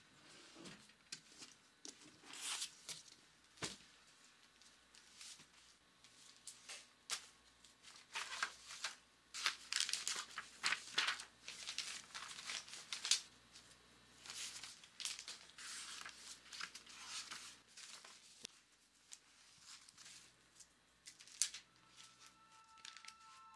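Paper rustling and crinkling as pages of a notebook and a ring binder are turned and handled, in irregular soft bursts. A few steady musical tones come in near the end.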